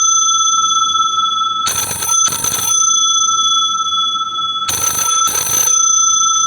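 Old-style telephone bell ringtone playing on a smartphone for an incoming call: two double rings, each a pair of short bursts, about three seconds apart, over a steady high whine.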